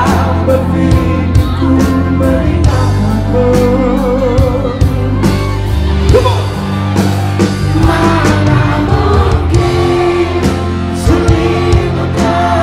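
Live pop band performance: a male lead vocalist sings over drums and bass, holding a note with vibrato about four seconds in.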